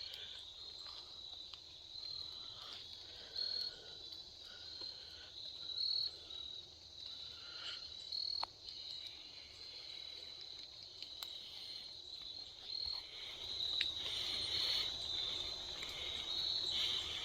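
Insects trilling steadily at a high pitch, with the chorus growing louder near the end. A few sharp ticks sound now and then.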